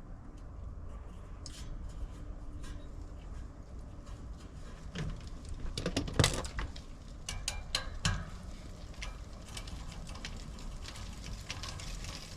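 Scattered clicks, light metal clinks and knocks of hand work on an outdoor air-conditioning condenser unit, most frequent in the middle with one louder knock about six seconds in, over a low steady rumble.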